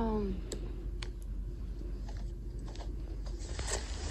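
Soft rustling of denim clothes being handled, with a few scattered light clicks.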